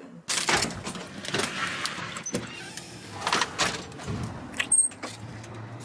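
Rustling and clattering handling noise with light knocks as a glass storm door is pushed open, with a couple of brief high squeaks.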